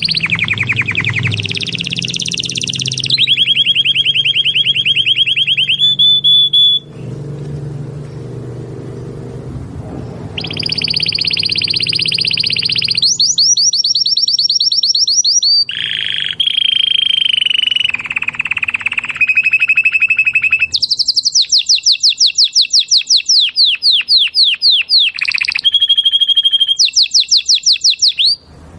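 Canary singing a long song of fast trills, each phrase a rapid run of repeated notes, some high and ringing, some lower and rolling, with a lull of about three seconds around seven seconds in.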